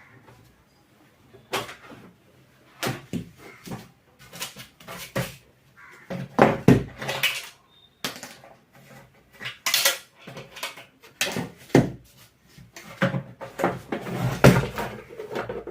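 Irregular knocks, clicks and clatter of hard parts and tools being handled while a mixer grinder is taken apart for repair.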